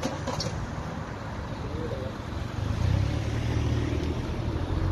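Car engine running close by: a steady low hum that swells louder about three seconds in, over a haze of road noise.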